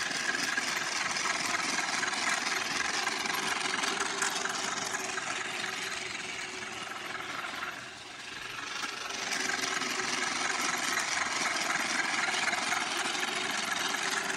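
Battery-operated Santa Fe toy train locomotive running around its track, its motor and gears making a loud, steady mechanical whir. The sound dips briefly about halfway through, then comes back up.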